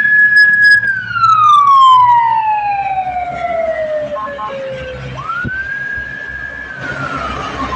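Bus 'telolet basuri' musical horn sounding: one note held for under a second, then sliding slowly down in pitch for about four seconds; it swoops quickly back up about five seconds in, holds, and starts sliding down again near the end. A low engine rumble runs underneath.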